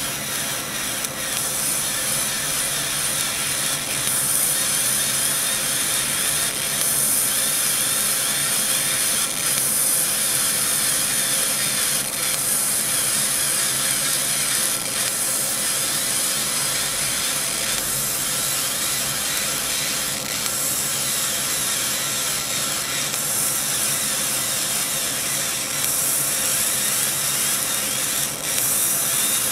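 CO2 laser cutting machine cutting 0.3 mm brass sheet: a steady high hiss with a faint steady hum underneath, growing slightly louder about four seconds in.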